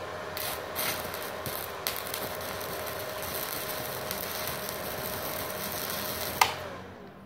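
Stick (MMA) welding arc crackling steadily, fed by a small MultiPro 450-watt inverter welder running on a 900-watt household supply. About six and a half seconds in it stops abruptly with a sharp click, after a bead only about 4 cm long.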